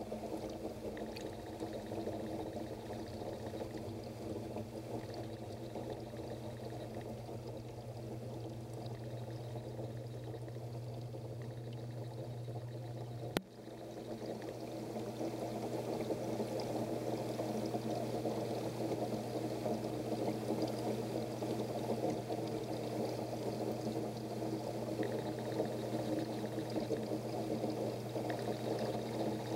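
Aquarium water running and splashing steadily, with a low electrical hum under it. About 13 seconds in there is one sharp click, after which the water sound is a little louder.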